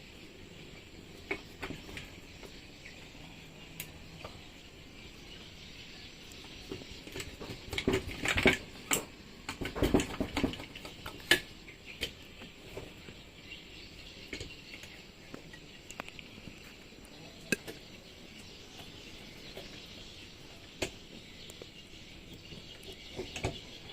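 Scattered metallic clicks and knocks of tools and parts being handled while an outboard engine is assembled. They come thickest and loudest a third of the way through. A steady high chirr of insects runs underneath.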